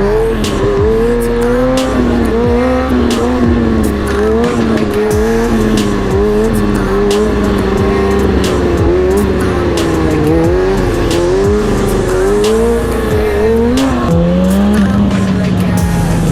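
Inline-four sport-bike engine running at high revs, its pitch rising and falling over and over as the throttle is worked, settling to a steadier, slightly lower note near the end. Background music with a beat plays along.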